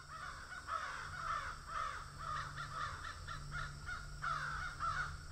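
Crows cawing over and over in a quick run of harsh calls, the caws coming fastest in the middle, over a low steady hum.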